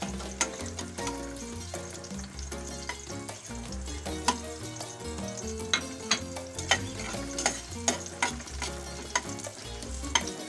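Garlic cloves sautéing in hot oil in a metal pot, sizzling steadily while a metal spatula stirs them, with sharp clicks and scrapes as it strikes the pot. Background music plays underneath.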